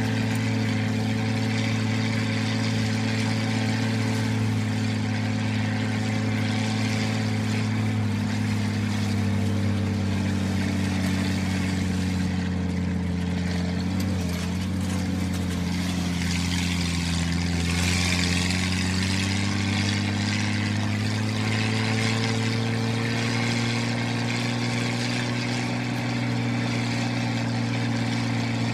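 A motor running with a steady droning hum. Its pitch sags a little around the middle, then climbs back.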